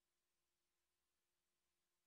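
Near silence: dead air with no audible sound.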